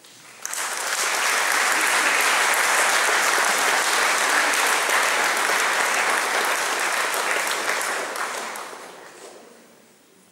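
Concert audience applauding, starting about half a second in, holding steady and dying away near the end.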